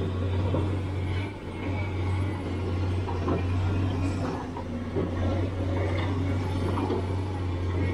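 Sumitomo SH490 hydraulic excavator's diesel engine running with a steady low hum while it loads earth into a steel tipper trailer, with scattered knocks of soil and stones dropping into the trailer bed.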